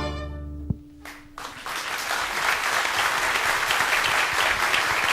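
A children's and youth symphony orchestra's final chord dies away within the first second. About a second and a half in, the audience breaks into steady applause.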